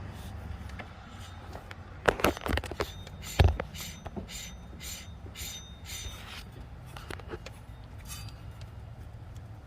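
Sharp metallic knocks, then an even run of ringing metal clicks, about three or four a second, over a low steady hum.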